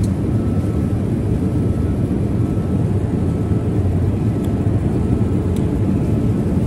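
Steady low drone of jet airliner cabin noise in flight, engines and rushing air heard from inside the cabin, with two faint clicks about four and a half and five and a half seconds in.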